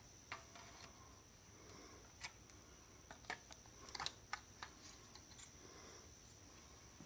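Faint, scattered clicks and taps of small electronic parts being handled while a computer unit is dismantled, with a quick cluster of them about four seconds in. A faint steady high-pitched whine runs underneath.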